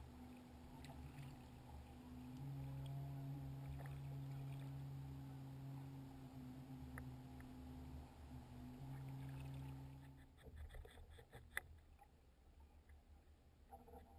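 Kayak downrigger's cable humming as it is trolled through the water with the weight down, about 19 feet deep: a steady low hum that grows stronger a couple of seconds in and stops about ten seconds in. Faint clicks and one sharp tick follow.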